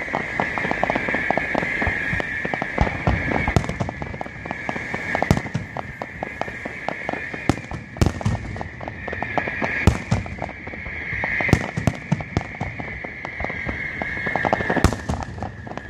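Fireworks going off in rapid succession: a dense run of crackling pops with several louder bangs scattered through, over a steady high hiss.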